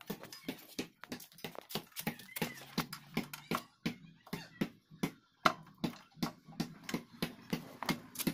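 A steady run of sharp clicks or knocks, about three a second.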